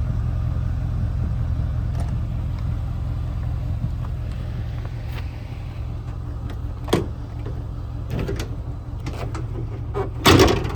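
A 6.2-litre gas V8 idling steadily as a low rumble, with a short sharp knock about seven seconds in, a few light clicks after it, and one loud bang near the end.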